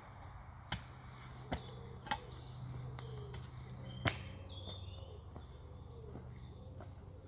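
A steel spade knocking into the ashes and ground of a spent campfire as the ash is broken up and spread: four sharp strikes, the loudest about four seconds in. Birds sing throughout.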